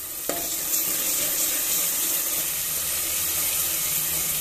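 Onion paste and ginger-garlic paste frying in hot oil in an aluminium pressure cooker: a steady sizzle while it is stirred, after a single short knock near the start.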